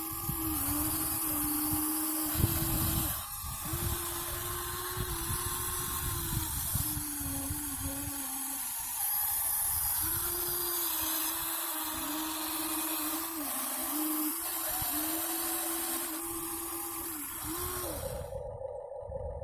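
Small electric motors and plastic gearboxes of a Huina 1593 RC excavator whirring, their whine dipping and rising in pitch and pausing briefly several times, then stopping near the end, leaving a faint steady hum.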